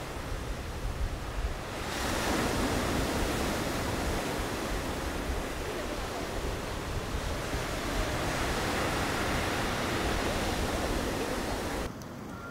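Ocean surf breaking on the shore: a steady rushing wash that grows louder about two seconds in. It cuts off suddenly just before the end.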